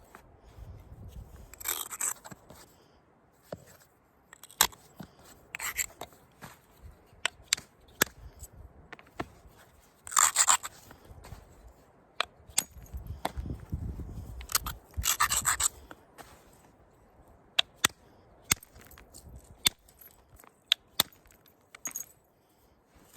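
Stone preform being worked with an elk bone billet: four scraping strokes of about a second each, as the edge is abraded, between many short sharp clicks of bone striking and flaking the stone.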